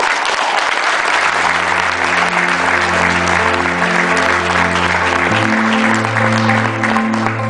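Audience applauding, with instrumental music coming in about a second in: held bass notes under a repeating melody, changing chord about two-thirds of the way through.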